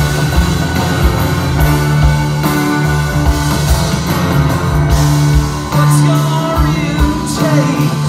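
Live rock band with an orchestra of strings and brass playing loudly, with a steady drumbeat under sustained bass notes.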